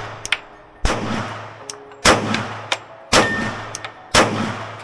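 Four pistol shots from a Glock 23 in .40 S&W, fired at an even pace of about one a second, each followed by a short ringing echo.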